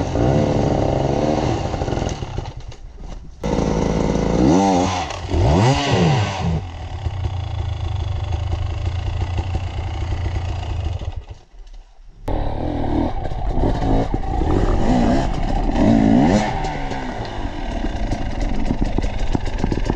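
Enduro motorcycle engines revving hard in repeated bursts on a rock-ledge climb, the pitch sweeping up and down with the throttle. The sound drops away sharply twice, about a seven-tenths of the way into the first quarter and again just past halfway, then revs resume.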